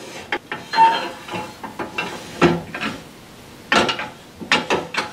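Wood lathe tool-rest post scraping and clunking in the banjo as it is worked up and down, with a short squeak about a second in and several sharp knocks near the end. The post hangs up and won't slide freely: the banjo needs cleaning and lubrication.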